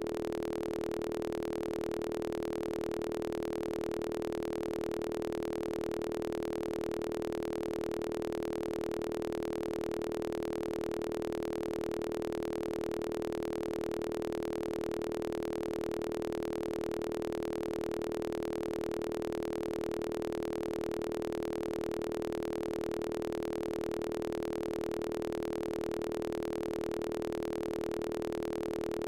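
A steady synthesized test tone from Max MSP, a single mid-pitched note with fainter overtones, held unchanged: the left and right signals driving the oscilloscope display.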